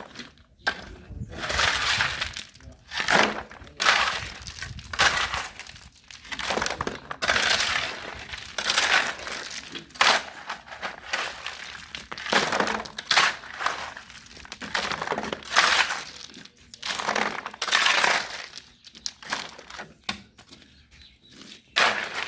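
Shovel work in gravel: a gritty scrape-and-crunch stroke roughly once a second, over and over.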